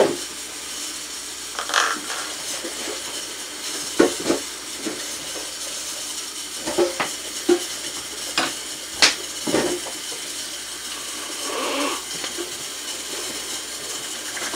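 A spoon clicking and scraping in a plastic funnel, poking filling down into a balloon: scattered sharp taps, several close together in the middle, over a steady hiss.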